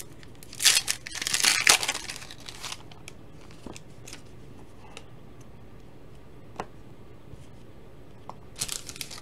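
Foil wrapper of a Panini XR football card pack being torn open, with two loud rips about half a second to two seconds in. A few faint clicks follow as the cards are handled, and the foil crinkles again near the end.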